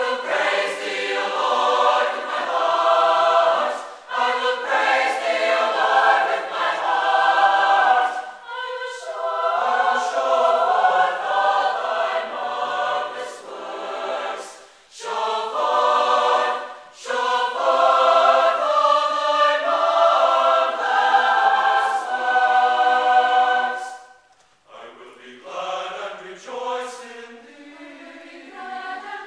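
Large mixed choir of men's and women's voices singing a hymn in full chords, phrase by phrase with short breaks between. About 25 seconds in the singing turns to a quieter, lower passage.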